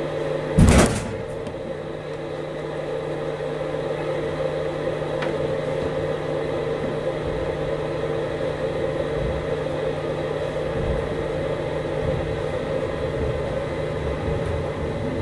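Steady electrical hum inside a sleeper-train carriage standing at a station, with a brief loud burst of noise about a second in.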